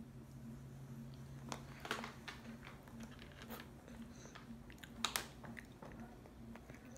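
Faint crunches and mouth clicks of a toddler slowly chewing a crunchy snack stick, a few scattered bites over a low steady hum.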